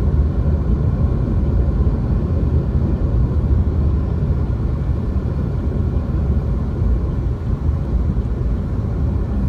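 Steady low rumble of a moving vehicle, loud and even throughout.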